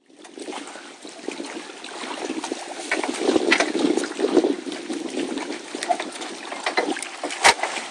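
Lake water lapping and trickling against a wooden dock and boat hulls: a dense run of small splashes and clicks, with one sharper knock near the end.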